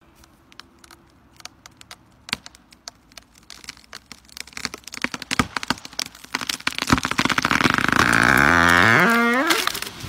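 Large tree's wood cracking and splintering as it gives way: scattered sharp snaps at first, growing denser and louder into continuous crackling. A long creak rising in pitch comes near the end.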